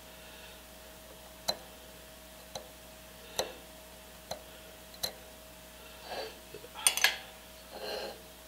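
Sharp metallic ticks, about five spaced roughly a second apart, as a brass marking tool is pressed against the compressor's valve plate, then a louder metal clatter about seven seconds in as the cast cylinder is handled on the steel bench. A faint steady hum runs underneath.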